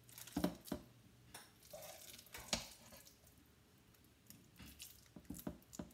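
A spatula scooping soft vegetable loaf mixture out of a pot and dropping it into a lined loaf tin: scattered light taps and clicks of the spatula, with soft squishy plops of the mixture.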